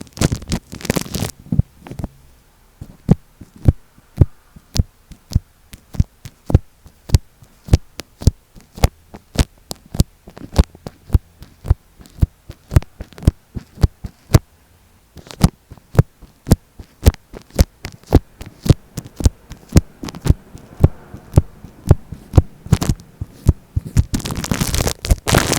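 Steady tapping right on tape covering an Apple EarPods microphone, about two to three sharp taps a second. Scratchy rubbing on the tape at the start and again near the end.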